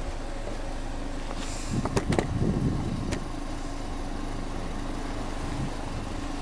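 Subaru Legacy 2.0GT spec.B's turbocharged flat-four (boxer) engine idling steadily, heard at the exhaust tailpipes. A few sharp knocks come about two seconds in, with one more shortly after.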